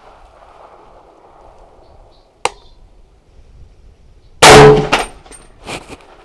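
A single .308 rifle shot from a Daniel Defense DD5V2 semi-automatic rifle about four and a half seconds in, very loud with a trailing echo. A brief high metallic tinkle and a few light knocks follow it. Earlier, about two and a half seconds in, there is one short, sharp metallic ping.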